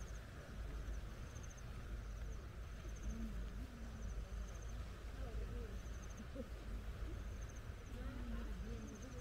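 Outdoor ambience of a low wind rumble on the microphone and faint voices of people talking some way off, with a high, short pulsed chirp repeating about once a second.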